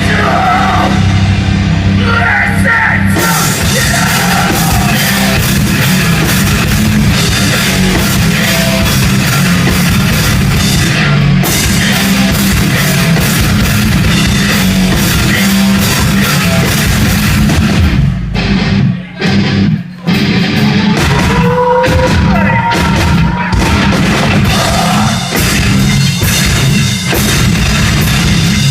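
Live heavy rock band playing loud, with drums, distorted guitars and bass. The music cuts out briefly twice about two-thirds of the way through.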